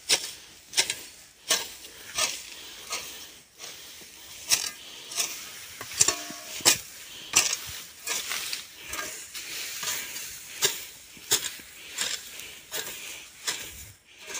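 Short-handled hoe chopping into grass and soil, clearing weeds: sharp strikes about one and a half a second, with a brief pause about three and a half seconds in.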